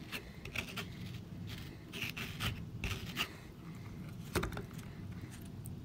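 Small plastic dig tool scraping and picking at soft, waterlogged dig-kit blocks in a dish of water, in irregular wet scrapes and light clicks, with one sharper knock about four seconds in.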